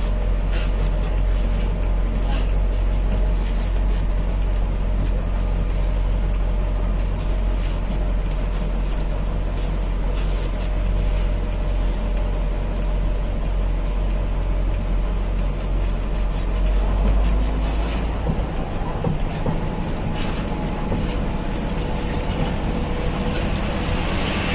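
Heavy truck on the road: engine and road noise as a steady low rumble, with a few light clicks and rattles. The deepest part of the rumble eases about three-quarters of the way through.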